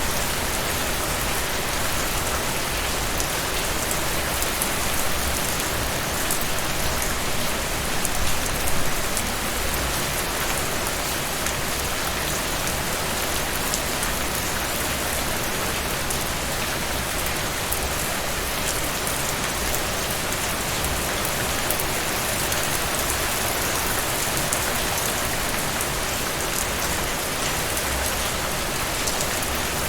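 Steady heavy rain falling on a surface, a dense even hiss with fine drop patter throughout.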